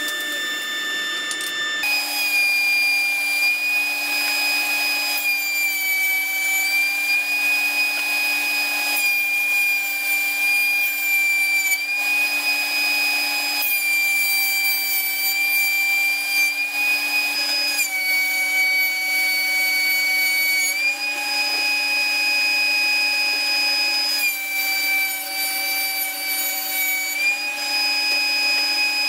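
DeWalt benchtop thickness planer running with a high, steady whine. The pitch sags slightly for a few seconds at a time, every three to four seconds, as boards pass through and load the cutterhead.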